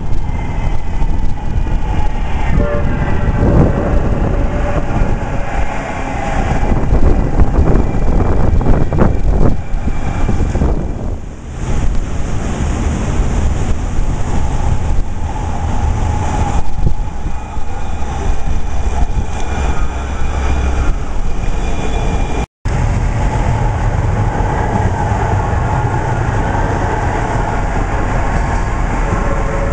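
Electric light-rail tram running along its track through a fountain channel, its motors giving faint whining tones that glide in pitch over the steady rush of running water. A tram passes close near the end. The sound drops out for an instant about two-thirds of the way through.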